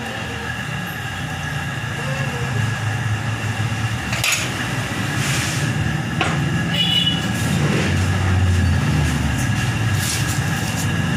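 An engine running in the background, a steady low rumble that grows a little louder over the seconds, with a few light clicks mixed in.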